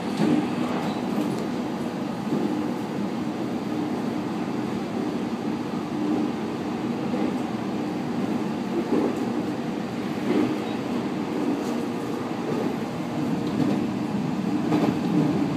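Passenger train running along the track, heard from inside the car just behind the driver's cab: a steady rumble of wheels on rail with a low hum and a few faint knocks.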